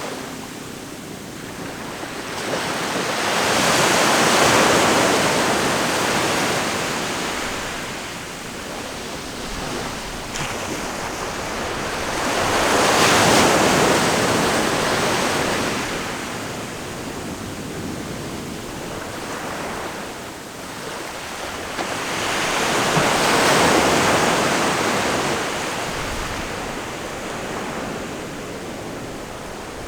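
Ocean waves breaking and washing ashore, three times, each swell of surf rising to a peak and falling back, about every nine to ten seconds, over a steady wash of sea noise.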